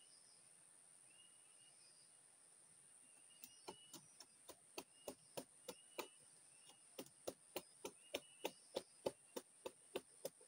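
Small fire of dry twigs and leaves catching and crackling: a run of sharp pops, about three a second, beginning a few seconds in, over a steady high insect drone.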